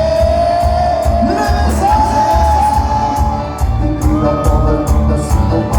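A live cumbia band playing loudly over a PA, with a steady pulsing bass beat, held melodic lines and regular percussion strokes. A crowd shouts along.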